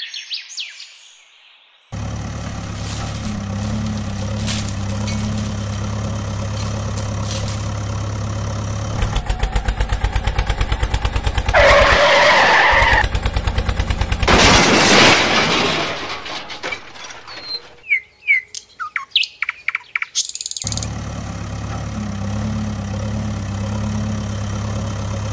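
Dubbed engine sound effects for toy construction vehicles: a steady diesel-like engine drone, cut to a fast, even chugging for a few seconds, then two loud noisy bursts. Bird chirps follow in a quieter gap before the steady engine drone returns.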